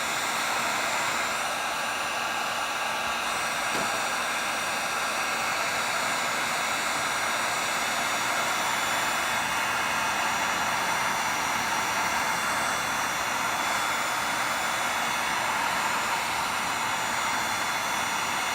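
Electric heat gun blowing hot air steadily, shrinking heat-shrink tubing over spliced turn-signal wire connections.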